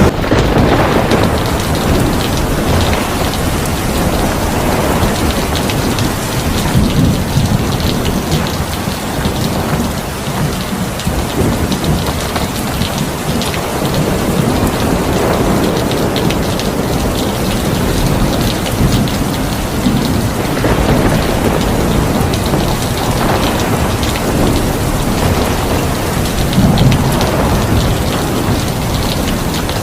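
Heavy rain falling steadily, with thunder rumbling underneath that swells and fades several times.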